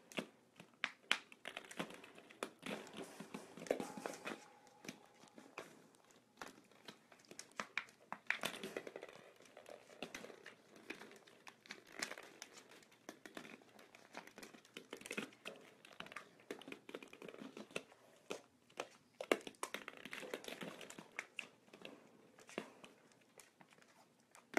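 Hollow plastic ball-pit balls knocking together and rolling on a hardwood floor as a fox terrier noses and paws through them: a stream of irregular light clicks, knocks and rustles.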